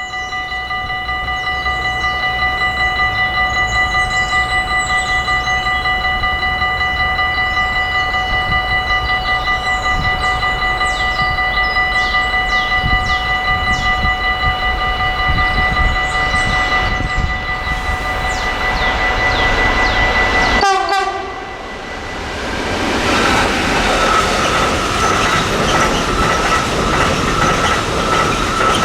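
Approaching train sounding a long, steady horn over the rumble of its engine. About 21 seconds in the horn drops sharply in pitch and cuts off as the locomotive passes. The wagons then roll by with a dense rolling clatter and a faint wheel squeal.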